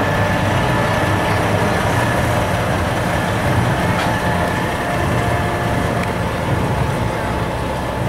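Large diesel semi truck engine running steadily close by, a deep continuous rumble.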